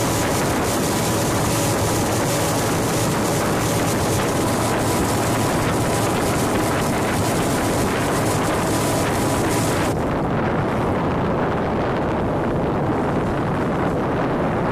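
Small boat underway: its engine runs steadily under a rush of wind and water. About ten seconds in, the hissing rush cuts off suddenly and the lower engine sound carries on.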